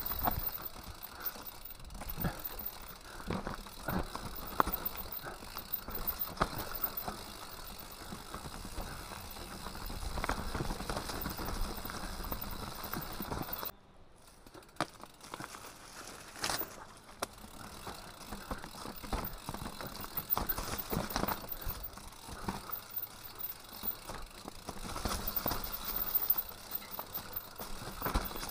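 Mountain bike riding down a dirt forest trail: tyres rolling over dirt and leaf litter, with frequent knocks and rattles from the bike over bumps. It goes briefly quieter about halfway through.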